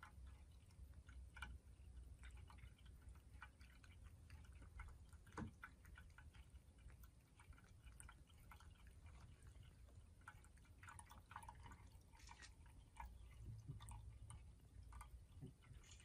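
Faint, irregular drips and ticks of water at a ceramic cat drinking fountain with its pump running, with a Ragdoll cat lapping at the water now and then.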